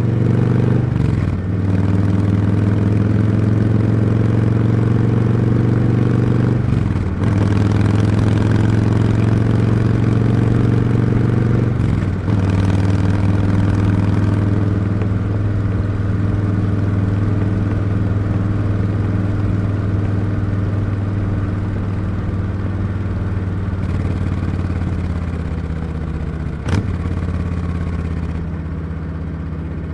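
Harley-Davidson V-twin motorcycle engine under way, its exhaust note climbing through the gears with brief dips at the shifts about a second in and around seven and twelve seconds in. It then holds a steady cruise and falls in pitch and loudness as the bike slows near the end, with one sharp click.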